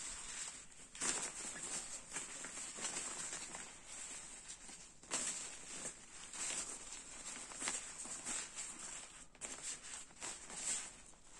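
Thin synthetic fabric rustling and crinkling as hands handle a strapped compression sack and the slick shell of a down sleeping bag, in irregular swells with a few sharper crinkles.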